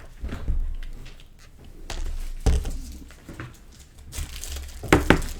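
Sealed trading card boxes being opened and handled: packaging crinkling and tearing, with scattered taps and a sharp knock about halfway, and two sharp clicks near the end.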